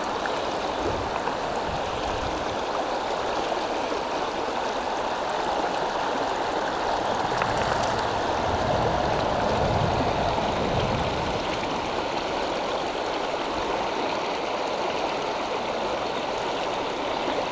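Fast, shallow riffle of a rocky trout stream, water rushing and gurgling over stones in a steady, even wash.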